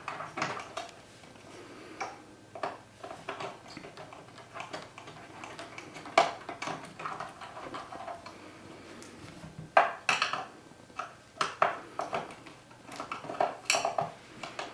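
A screwdriver and small screws clicking and clinking against the metal and plastic housing of a DLP TV light engine as it is unscrewed. The sharpest clinks come about six seconds in and near ten seconds, with a quick run of them after that.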